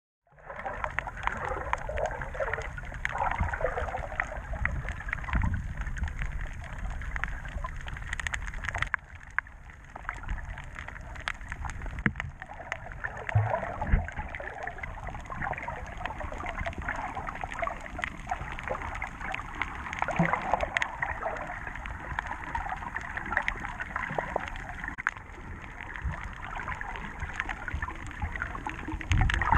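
Underwater water noise: steady rushing and gurgling water with a low rumble and small crackles. It starts abruptly just after the start and dips quieter for a moment about nine seconds in.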